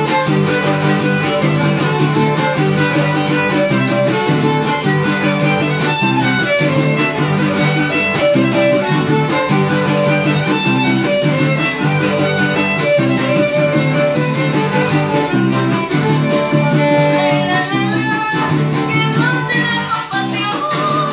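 Trío huasteco playing a huapango instrumental: the violin carries the melody over the strummed rhythm of a huapanguera and a jarana huasteca.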